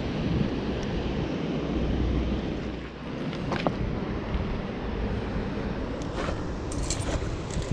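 Steady rush of river water with wind buffeting the microphone, and a few light clicks.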